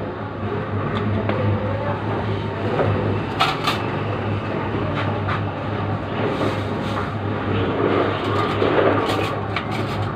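Steady low hum of running machinery, with scattered clinks and knocks of things being handled.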